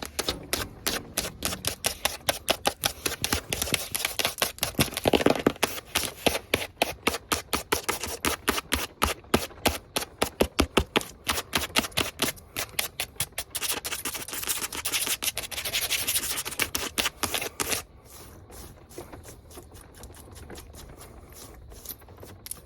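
Long fingernails tapping fast and hard in a dense run of sharp clicks, several a second. About three-quarters of the way through the tapping drops to a much softer, lighter clicking.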